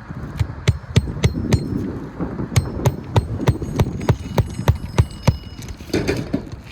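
A series of sharp strikes, about three a second, many of them leaving a brief high ringing, with a pause of about a second after the first few.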